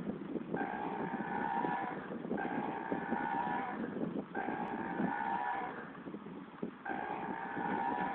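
A steady two-pitch hooting tone sounding over and over, about five times, each lasting a second or more with short breaks between, over a continuous low motor rumble.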